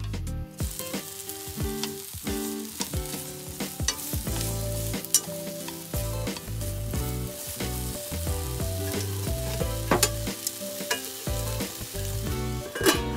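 Sliced lotus root frying in a pan, sizzling steadily as it is stirred with a wooden utensil, with sharp clicks and taps of the utensil against the pan.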